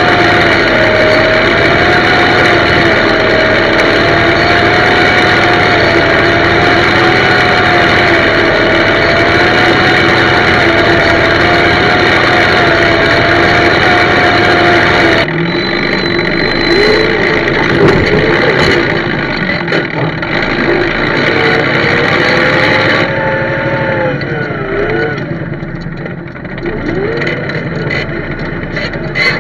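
Same Frutteto 80 tractor's diesel engine running steadily under load while it pulls a spring-tine cultivator through the soil. About halfway through there is an abrupt cut, and after it the engine is quieter, with its pitch rising and falling.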